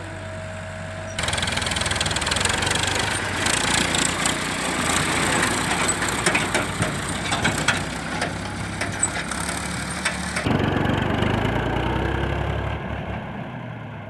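Diesel tractor engine running as it pulls a trailer loaded with soil, with rattling and knocking from the trailer as it passes close by. The sound changes abruptly about a second in and again near the ten-second mark.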